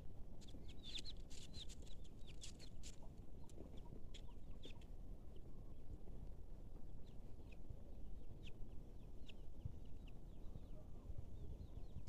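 Birds calling in short high chirps, thickest in the first few seconds and sparser after, over footsteps crunching on a stony dirt path.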